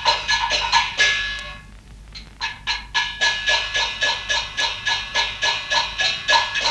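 Music with rapid struck percussion notes, about four a second, over a high held tone. It thins out briefly about two seconds in, then the strikes resume.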